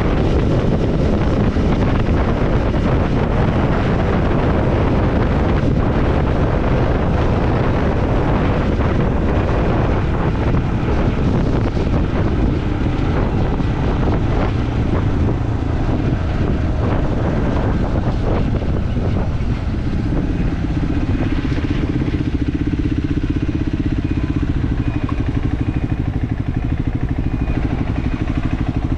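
Triumph Scrambler 400X's single-cylinder engine running under way, with heavy wind rush on the microphone. After about twenty seconds the wind eases and the engine's steady note comes through more plainly.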